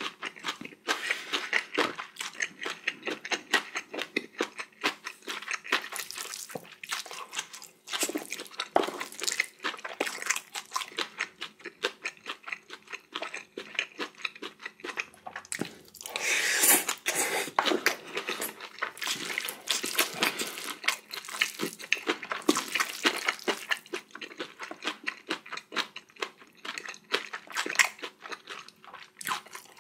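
Close-miked eating: mouthfuls of spicy bibimbap and kimchi chewed and crunched, a quick run of wet mouth clicks with a louder stretch a little past halfway.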